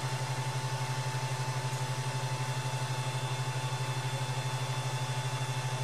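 Powered-on Ender 3 Pro 3D printer sitting idle: a steady low hum with a fast, even flutter and a faint steady higher tone, typical of its cooling fans and electronics running.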